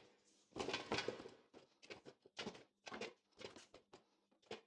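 Metal bench scraper cutting bun dough into pieces on a stainless-steel table: a run of irregular short scrapes and taps, the loudest about a second in.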